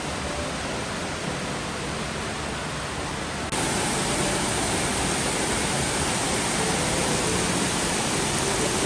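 Waterfall rushing: a steady, dense noise of falling water that jumps abruptly louder about three and a half seconds in, then holds at the louder level.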